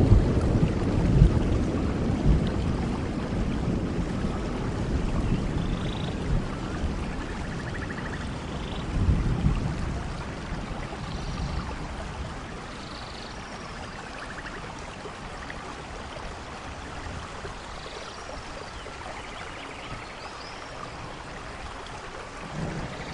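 Steady rain with rolling thunder: a rumble fades away over the first few seconds, and a shorter rumble comes about nine seconds in before the rain settles quieter. A few faint high chirps sound above the rain.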